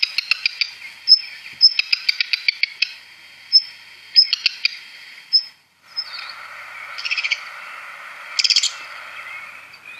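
Recorded song of a black redstart: high thin whistles and quick stuttering trills, then, from about six seconds in, brief scratchy crackling bursts like crumpled paper.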